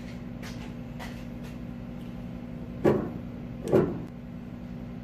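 Two metal clunks about a second apart as a short metal tube is pushed and seated into the hole in the bottom of a steel barbecue bowl, over a steady low hum.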